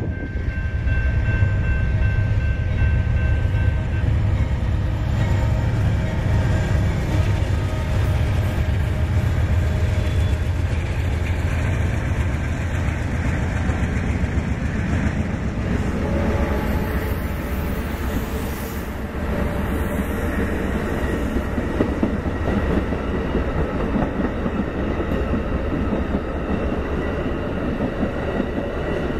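Amtrak GE P42DC diesel-electric locomotive passing at a grade crossing: a heavy, low engine rumble that is loudest for the first ten seconds or so. After that, passenger cars roll by with steady wheel-on-rail clatter.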